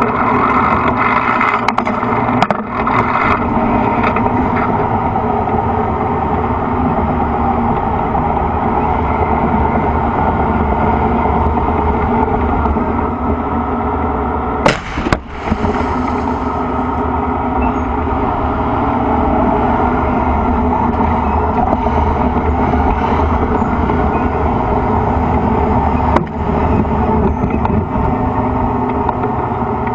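A T-72 tank's V12 diesel engine runs with a steady, loud drone, heard close up from on the turret. A sharp bang cuts through it about halfway, with lighter knocks near the start and another a few seconds before the end.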